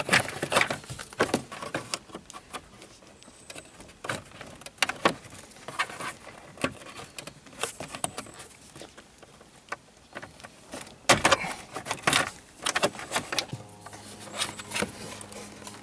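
Scattered plastic clicks and rattles as a BMW E46's steering-column trim is pried and pulled loose by hand, with a few louder knocks about two-thirds of the way through.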